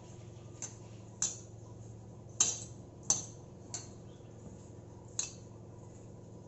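Six sharp clinks, the loudest about two and a half and three seconds in, from bangles on a hand kneading wheat flour dough, knocking together and against the steel mixing bowl. A low steady hum runs underneath.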